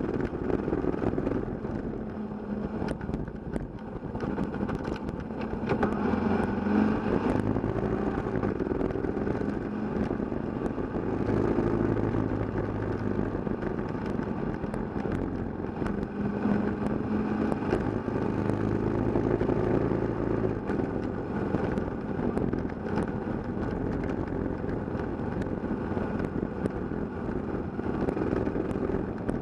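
Kawasaki KLR650 single-cylinder engine running under way on a dirt road, its pitch rising and dropping back several times as the rider changes speed.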